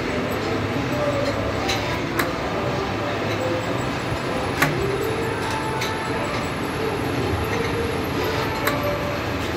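Machinery running steadily with a low hum, with a few sharp knocks about two, four and a half and eight and a half seconds in.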